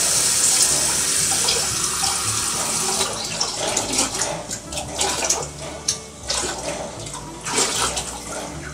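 A loud rushing hiss, steady for about three seconds, then coming in uneven surges and bursts.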